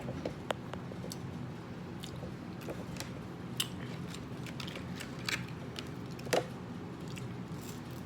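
Close-up eating sounds: chewing and biting on McDonald's chicken nuggets and fries, with scattered sharp mouth clicks over a steady low hum.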